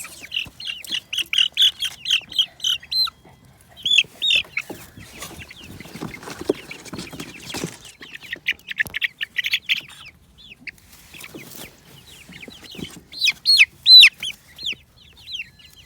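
Young pullets peeping: quick runs of short, high calls, with a soft rustle in the middle and the loudest, drawn-out peeps near the end.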